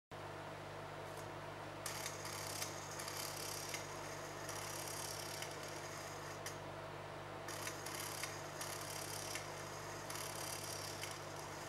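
CD-ROM drive's small stepper motor, driven in microsteps, running the laser pickup sled back and forth along its lead screw. Under a steady low hum, higher-pitched stretches of motor noise start and stop every second or two as the motor changes direction and step count.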